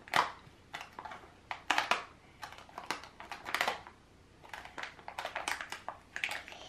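Plastic blister packaging crackling and clicking as fingers pick at and peel open a sealed mystery-figure pocket, in irregular short crackles with brief pauses between them.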